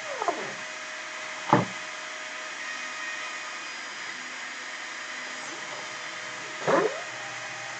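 Cyclone PCB Factory CNC mill drilling a circuit board: its spindle motor runs steadily throughout. Three times, near the start, about a second and a half in, and near the end, the stepper motors give a short whine that sweeps steeply down in pitch and back up as the machine moves between holes.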